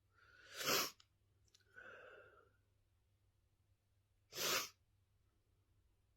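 A person sneezing twice, about four seconds apart: the first sneeze comes after a rising intake of breath, and a quieter breath follows it before the second sneeze.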